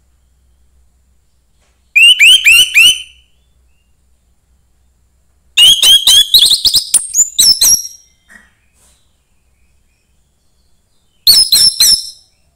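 Young wild orange-headed thrush singing. It gives three short bursts of rapid notes that sweep down in pitch: one about two seconds in, a longer one around six seconds in, and a brief one near the end.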